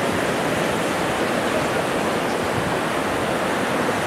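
Steady, even rush of sea surf and wind on an open beach.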